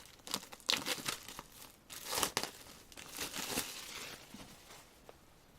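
Plastic wrapping on a K-pop album crinkling and tearing as it is opened, in irregular spells of crackling that are loudest about one and two seconds in.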